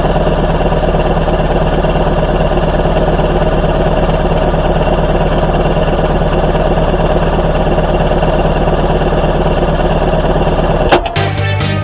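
A motor running steadily at one constant speed with a fast, even rhythm, cutting off abruptly near the end.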